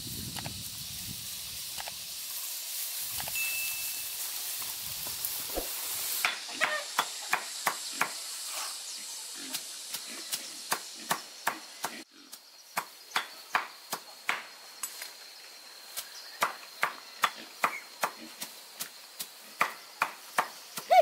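A knife chopping, sharp regular strokes two to three a second, starting about six seconds in. Before that, a steady high hiss with faint rustling.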